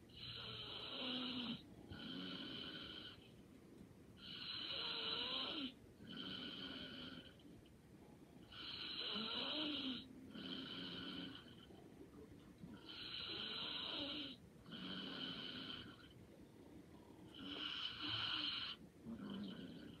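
Light snoring from a sleeper, in a slow, even rhythm of about five breaths. Each breath is a longer snore followed by a shorter, softer one.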